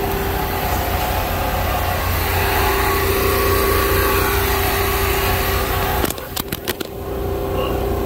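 Steady drone of a diesel engine-driven welding machine running, a constant hum over a low rumble. About six seconds in it dips briefly under a few sharp clicks.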